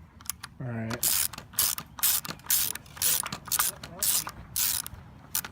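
A hand tool worked in quick, even strokes, about nine of them at roughly two a second, each a short rasping burst.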